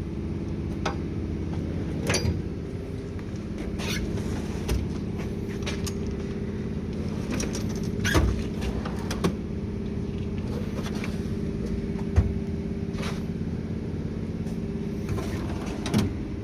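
Steady mechanical hum with a few even pitches, with scattered sharp clicks and knocks every few seconds.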